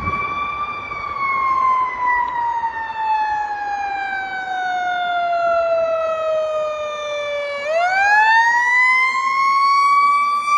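Fire truck siren wailing: one long, slow fall in pitch, then a quick rise back up about three quarters of the way through.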